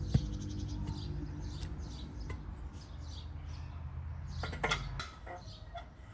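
Small birds chirping over a low steady outdoor rumble, with a sharp knock near the start and a few clattering knocks of wooden boards about four and a half seconds in.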